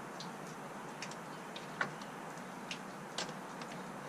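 Scattered light metallic clicks and taps, spaced irregularly, as a 10 mm bolt is fitted back into a hood strut bracket by hand and with tools.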